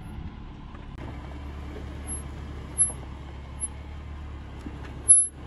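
Hummer H3's engine running at low revs as the truck creeps over rock, a steady low hum with tyre and gravel noise. A few short, high-pitched squeaks come over it, the loudest near the end.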